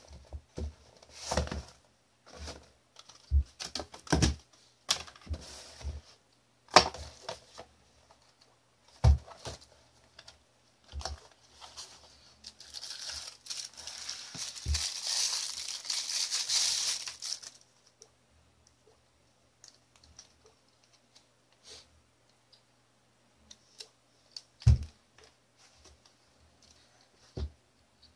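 Cardboard watch packaging and its plastic wrapping being handled and opened: scattered knocks and taps of the box against the table, then about five seconds of crinkling and rustling midway through. Afterwards only a few faint clicks and one knock.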